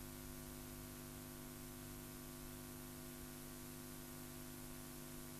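Faint, steady electrical hum with a hiss over it: the recording's background noise, with nothing else sounding.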